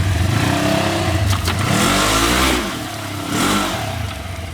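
Side-by-side UTV engine revving up and down in two surges, the second shorter, with a couple of sharp knocks early in the first surge.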